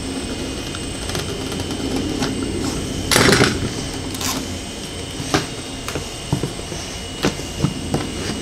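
A utility knife and a thin spring-steel flex plate handled on a wooden bench: one short, loud scrape about three seconds in, then scattered small clicks and taps, over a steady background hum.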